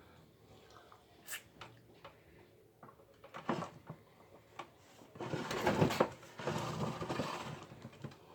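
Handling noises at a table: scattered light clicks and knocks, then a few seconds of dense crackling rustle starting about five seconds in.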